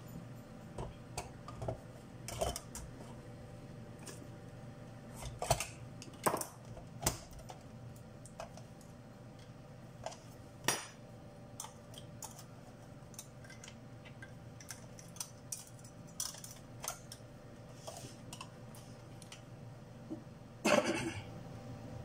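Scattered clicks, taps and clatters of metal parts and a screwdriver as the SpO2 monitor's metal housing and cover are handled and fitted back together, with the loudest clatter near the end. A faint steady hum underneath.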